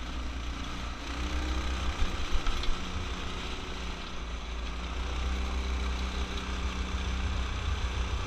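Off-road go-kart's small engine running steadily under way through its torque converter, with a heavy gusting wind rumble on the helmet-mounted microphone.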